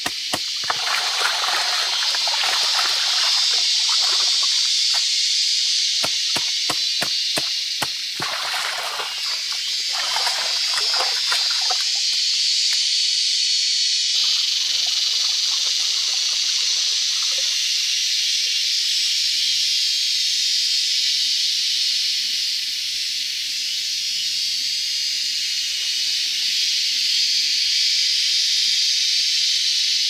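Shallow stream water splashing and sloshing as hands work through it, busy for the first dozen seconds and then dying down to a few faint splashes, over a steady high hiss.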